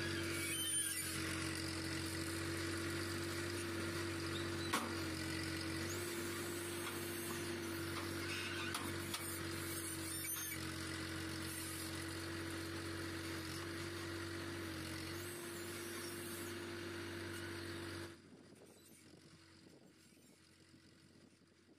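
Tractor engine driving a backhoe attachment, running at a steady raised speed with a constant drone that shifts slightly in pitch as the hydraulics take load, with a few sharp knocks. Near the end the sound drops off abruptly to a faint background.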